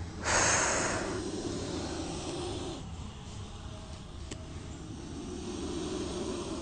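Cobra hissing: a loud, sharp hiss about a quarter second in that fades over about a second, then quieter, lower hissing breaths that swell again near the end.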